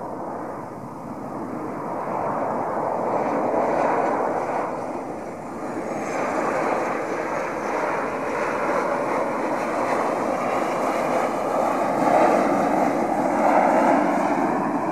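Twin-engine Boeing 737 jet airliner landing: a steady rush of jet engine noise swells as it comes in low and passes, dips briefly, then grows louder again as the aircraft touches down and rolls out on the runway, loudest near the end.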